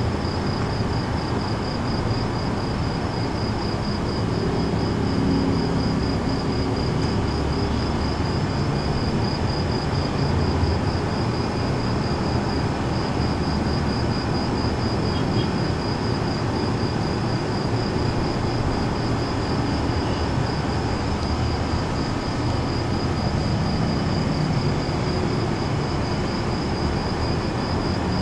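Night insects chirping in a steady, fast pulsing rhythm over a constant low rumbling background noise.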